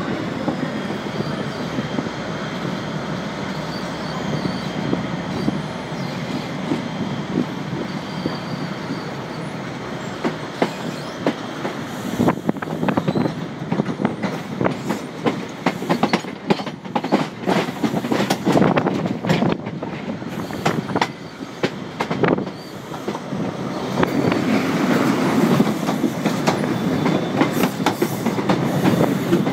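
Locomotive-hauled Mk3 passenger coaches running on the rails, heard from the coach side: a steady rumble of wheels on track, then a run of rapid clicks and clatters over pointwork from about twelve seconds in. The noise grows louder in the last few seconds.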